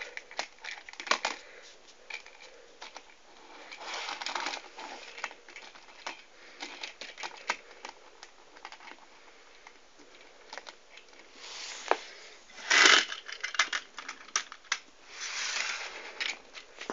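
Plastic model railway coaches being handled and set back onto the track by hand: irregular clicks and light rattles, with a louder rattling burst about three-quarters of the way through.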